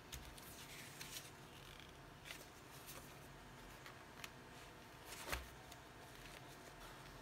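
Faint handling sounds: paper and plastic rustling and tapping as an album's photobook and photocards are picked up and its pages turned, in short scattered clicks with a louder tap about five seconds in.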